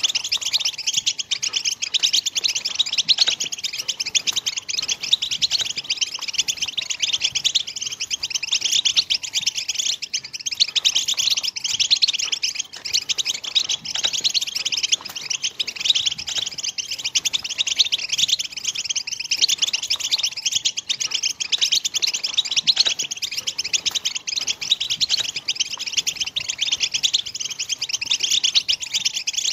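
European goldfinch song: a dense, continuous run of rapid high twittering and trills with no pauses.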